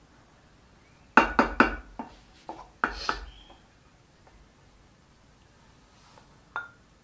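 Wooden spatula knocking against the side of an enamelled pot of cooked rice: a quick run of three sharp knocks, then several more over the next two seconds. One lighter knock near the end as a bowl is dipped into the pot.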